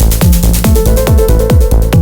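Live techno played on a drum machine and synthesizers: a steady kick-drum beat with ticking hi-hats under a repeating synth line and bass note, with a bright hiss washing over the top at the start.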